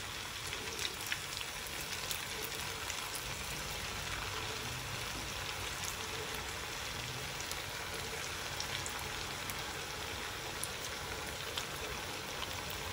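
Potato-and-poha fingers deep-frying in hot oil in a kadai: a steady sizzle with scattered small crackles.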